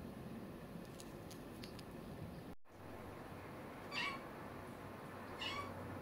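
Calico kitten meowing twice, two short calls about a second and a half apart.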